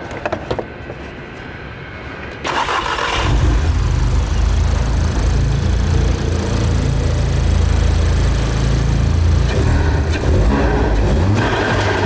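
Turbocharged Audi four-cylinder engine starting: a few faint clicks, then about two and a half seconds in it cranks briefly, catches, and runs steadily.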